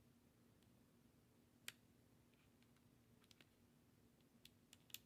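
Faint, sparse clicks of an eyeglass lens being worked into a half-rim frame and its line cord: one sharper click a little under two seconds in and a cluster of small clicks near the end, over a low steady room hum.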